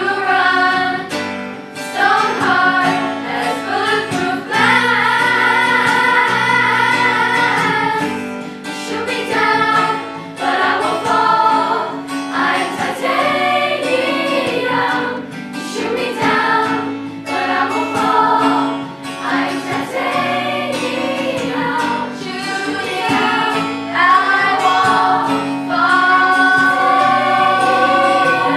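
School choir singing a song, with shorter moving phrases and long held notes, one in the first third and one near the end.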